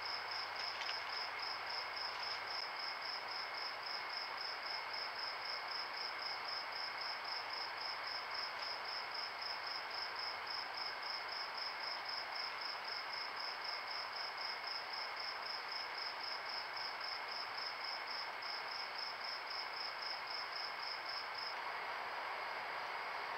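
A cricket chirping steadily, about three high chirps a second, over a steady lower insect-like tone and hiss; the chirping stops near the end.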